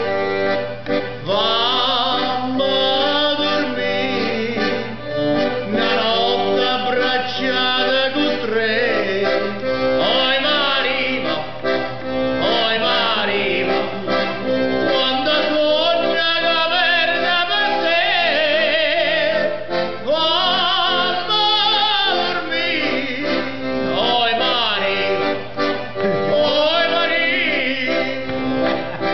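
A man singing while playing a piano accordion. The accordion holds steady chords beneath his wavering voice.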